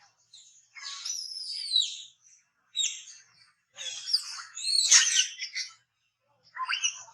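Baby monkey crying in high-pitched squeals that slide down in pitch, in about four bouts, the loudest about five seconds in.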